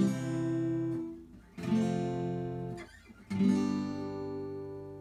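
Background music: acoustic guitar chords strummed three times, about a second and a half apart, each left to ring, the last one fading out slowly.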